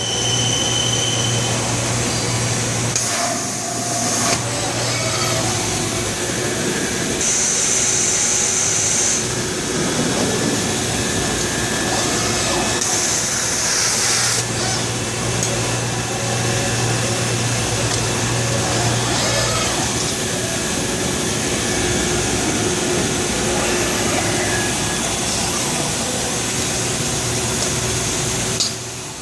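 Machining equipment in a robotic CNC cell running steadily: a constant mechanical wash with a low hum that drops in and out, and a few short bursts of high hissing, about 7 and 13 seconds in.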